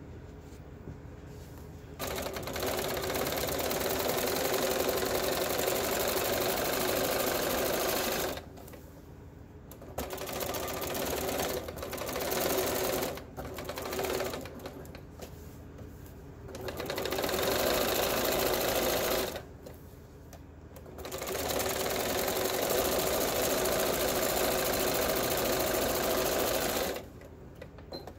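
Janome electric sewing machine stitching an eighth-inch seam around the edge of fabric layered on stabilizer. It runs in stretches of a few seconds, stopping briefly between them, with the longest run near the end.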